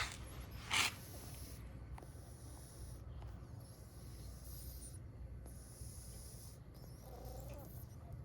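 Cat sneezing twice in quick succession near the start, each sneeze a short sharp burst of breath.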